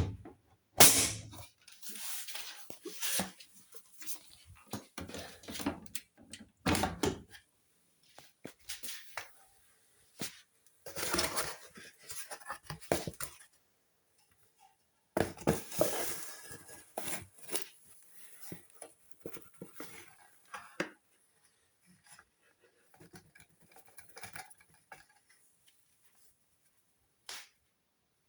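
Hoover washing machine at the start of a cycle: irregular clicks and knocks with short swishing bursts a second or two long, coming and going with quiet gaps between.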